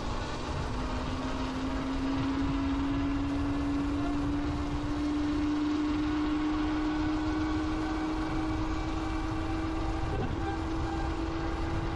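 Hybrid-converted Honda Dream motorbike accelerating: a whine rising steadily in pitch as the bike gathers speed, over wind rushing past the microphone.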